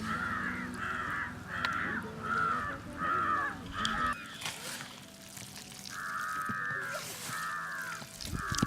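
A crow cawing over and over in a quick, even series of calls. The calls break off about four seconds in and start again a couple of seconds later.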